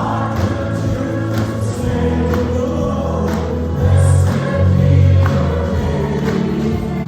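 Gospel or Christian worship music with a choir singing over steady bass and a beat.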